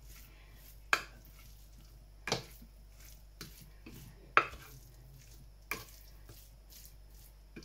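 A spoon stirring chopped roasted vegetables and sausages in a ceramic baking dish, knocking against the dish four times, about one to two seconds apart, with soft scraping between the knocks.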